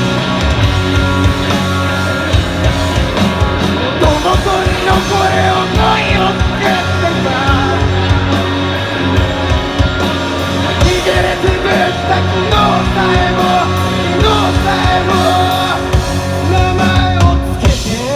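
Rock band playing loudly: electric guitar over bass and drums with a steady beat, in a passage without clear lyrics.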